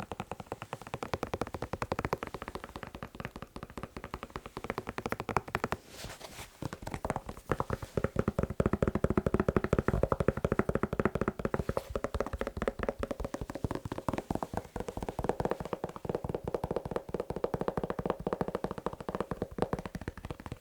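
Rapid fast tapping on a shoe, close up, in a dense run of taps with a brief lull about six seconds in.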